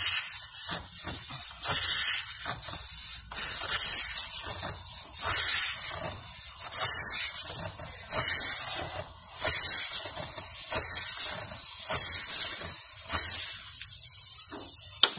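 Air hissing out of a tyre's nail puncture that has just been opened up with a reamer tool; the hiss surges and falls in uneven bursts, then settles quieter and steadier near the end.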